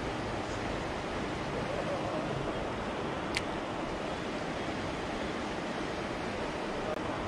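Steady outdoor rushing noise with one short sharp click about three and a half seconds in.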